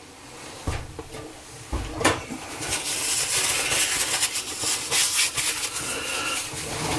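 Plastic and metal pop-up drain parts being handled and fitted under a sink: a few knocks in the first two seconds, then steady scraping and rustling with small clicks.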